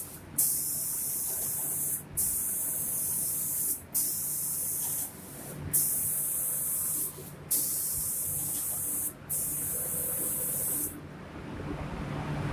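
Spray gun of an automatic door-painting machine hissing in six regular bursts of about a second and a half each, with short breaks between, stopping about eleven seconds in. A low steady machine hum runs underneath.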